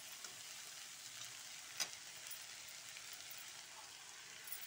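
Potatoes and peas frying in oil in a pan, a faint steady sizzle. A single sharp click comes a little under two seconds in.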